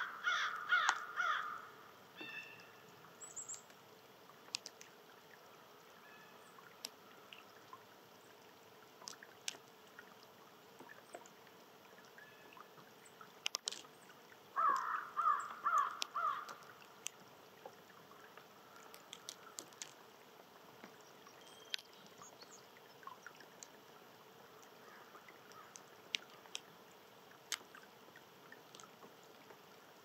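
A crow cawing in two bouts of several quick caws, one at the start and another about fifteen seconds in, with scattered faint clicks in between.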